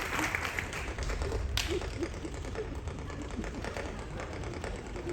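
Audience applause dying away, followed by scattered light tapping and clicking, with one sharp click about a second and a half in.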